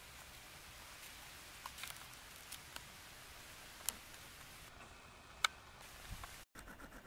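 Faint hiss with a few scattered sharp ticks and crackles of dry grass stems being disturbed close to the microphone, as a European hedgehog pushes through the grass. The sound drops out for an instant near the end.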